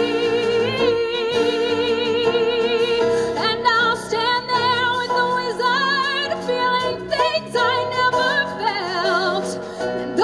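Woman singing a show tune with a strong vibrato, holding long notes, over piano accompaniment.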